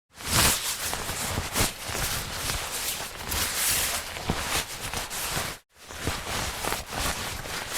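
Jacket fabric rustling as it is handled or worn in motion, a dense swishing with small clicks. It breaks off briefly about five and a half seconds in, and a second take of the same rustling starts straight after.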